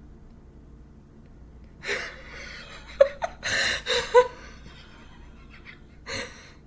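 A person's gasps and sharp breathy vocal sounds: one about two seconds in, a quick cluster a second later with brief pitched yelps, and one more near the end.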